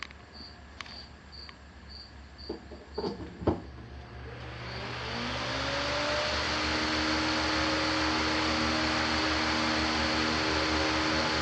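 A few faint clicks, then a 20-inch Master Force high-velocity floor fan starting up about four seconds in: its motor hum rises in pitch over about two seconds as a rush of air builds, then it runs steadily.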